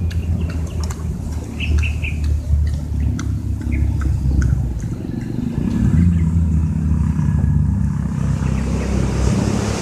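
Low, steady rumble of an engine running, with small birds chirping, mostly in the first half.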